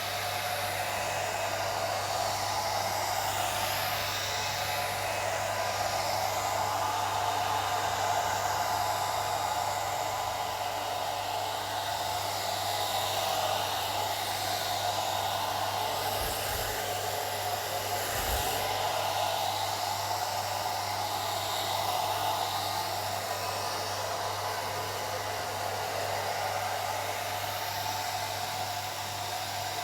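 Old hair dryer running steadily: a continuous rush of blown air with a steady low motor hum beneath it.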